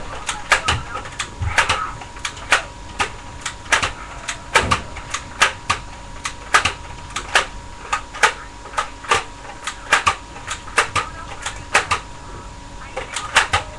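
Toy gun snapping off shots: a long, uneven run of sharp clicks, about two a second, with a faint steady hum underneath.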